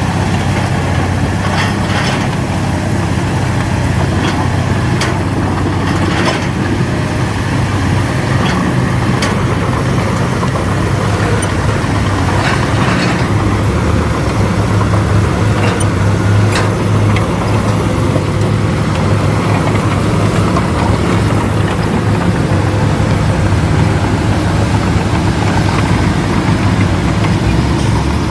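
Bulldozer's diesel engine running steadily under work, with a few sharp metallic clanks scattered through it.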